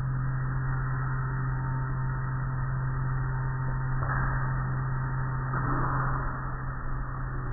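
Automatic car wash machinery running: a steady low motor hum under the hiss of water spray and cloth brushes, with the spray noise swelling briefly about four seconds in and again near six seconds.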